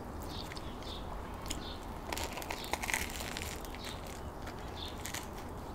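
Close eating sounds of a crusty baguette sandwich being chewed and bitten into: the bread crust crackling in small, irregular crunches, most of them about two to three seconds in.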